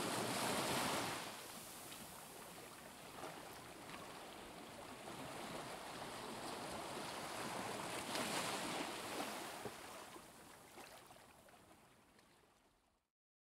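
Faint sea waves washing, swelling at the start and again about eight seconds in, then fading out near the end.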